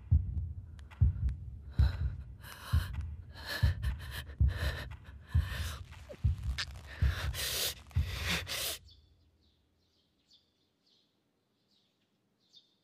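A heartbeat sound effect thumping slowly and steadily, a little faster than once a second, with sharp gasping breaths over it. It stops about nine seconds in, and only faint high flickers remain.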